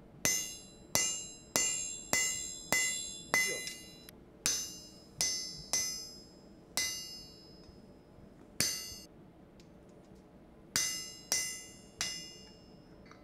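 Hammer striking a handled punch held on red-hot steel on an anvil, each blow a sharp metallic hit that rings and fades. About fourteen blows come in runs roughly two a second apart, with two short pauses midway.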